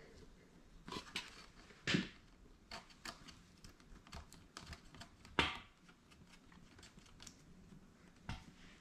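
Irregular small clicks and taps of hands and tools at work, with two louder knocks about two seconds in and just past five seconds.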